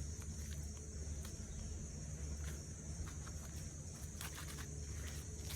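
Faint scattered rustles and scratches of hands digging through soil in a potato-growing basket, over a steady high insect drone and a low rumble.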